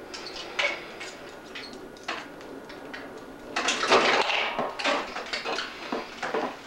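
Stiff thin wire being bent and worked by hand: a string of short, irregular scratchy clicks and rustles, loudest for about a second around four seconds in.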